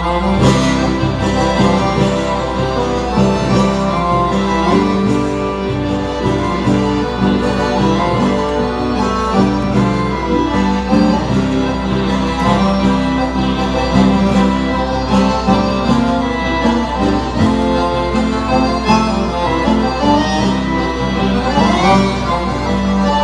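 Piano accordion and acoustic guitar playing gaúcho folk music, over a steady low hum.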